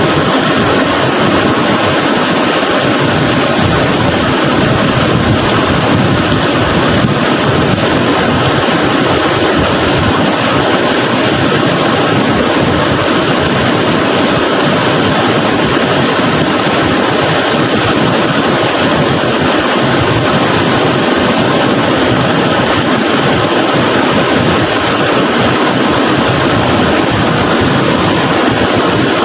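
Floodwater in a swollen river, rushing in a loud, steady, unbroken roar.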